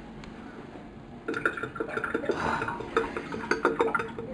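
Hard objects clinking and clattering in quick, irregular knocks, starting about a second in, as things are gathered up after the plumbing job.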